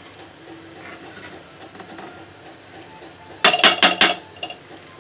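Spoon stirring rice in a kadhai, with soft scraping and then a quick run of about five sharp clinks against the pan about three and a half seconds in.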